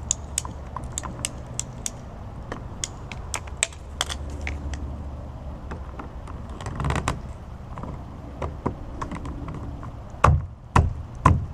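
Hard plastic clicking and clacking of 3/4-inch PVC pipe and tee fittings being handled and pushed together, with a scraping patch about seven seconds in and several loud thumps near the end, over a steady low hum.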